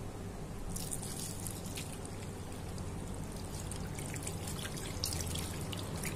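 Tap water running from a faucet into a washbasin, starting a little under a second in, splashing and trickling as soapy hands are rinsed under the stream.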